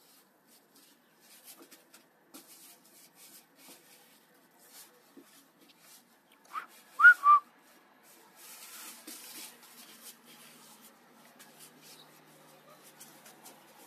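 Golden retriever puppy playing with its toys: three short high squeaks, each rising and falling in pitch, about seven seconds in, amid light scuffling, rustling and clicks of paws and toys on artificial turf.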